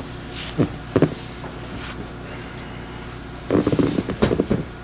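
A couple of short knocks, then about a second of rapid creaking and rustling near the end, from a patient shifting on a padded chiropractic table while being positioned.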